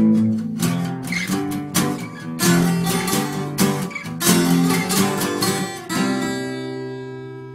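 Acoustic guitar strumming chords in a rhythmic pattern, ending about six seconds in on a final chord that rings out and fades.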